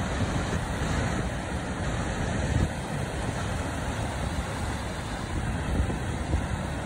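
Ocean surf washing up a sandy beach, a steady rushing noise, with wind rumbling on the microphone.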